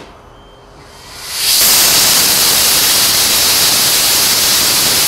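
Small experimental rocket motor firing: a loud, steady rush of noise that starts about a second in, builds within half a second and holds at full strength.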